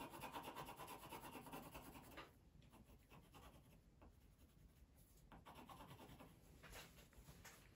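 Faint scratching of a pencil shading on paper, dying away for a few seconds in the middle before the strokes pick up again.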